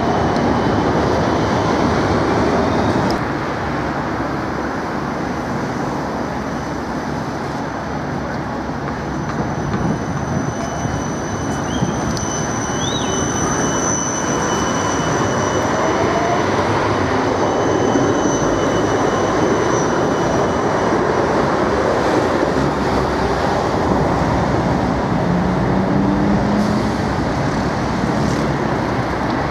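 Siemens Combino Supra low-floor trams running past close by on street track: steady rolling noise of steel wheels on rail. A thin, high, steady whine sits over it through the middle.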